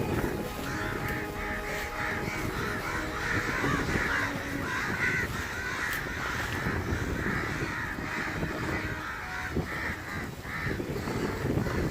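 A bird calling in a long run of rapid, harsh notes, over the low rush of strong wind on the microphone.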